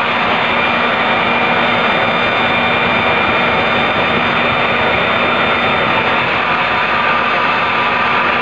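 Homemade turbojet built from a turbocharger running steadily: a loud, even rush of exhaust with a steady high whine from the spinning turbo over it.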